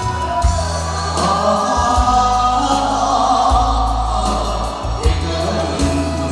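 Singers singing together into microphones over an amplified backing track with a heavy, regular bass beat, heard through the PA.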